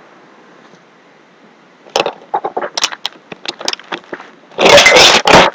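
Close handling noise at the microphone: a run of sharp clicks and crackles, then a loud rustling burst about a second long near the end.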